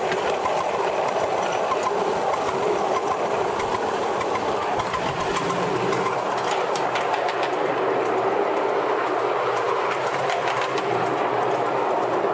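Scratch-built live steam Stirling single model locomotive running along its track: a steady rushing run of wheel and running noise, with scattered sharp clicks in the second half.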